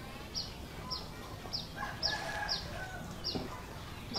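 Bird calls: short high chirps that fall in pitch, repeating about twice a second, with a longer drawn-out call about halfway through.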